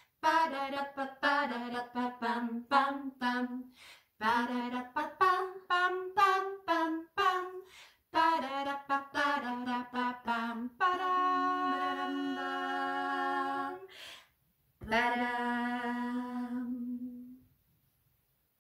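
Two women's voices singing a short unaccompanied melody in a minor key, without clear words: quick detached notes, then a long held chord, a brief break, and a final held note that fades out.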